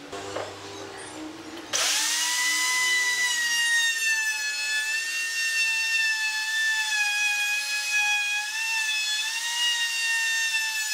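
Hand-held plunge router cutting along the edge of a wooden board: a loud, high motor whine that comes in suddenly about two seconds in, its pitch wavering slightly as it cuts.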